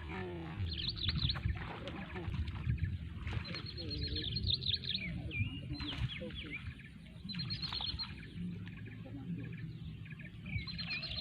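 Birds chirping in repeated bunches of quick, high, sliding notes every couple of seconds, over a low rumble.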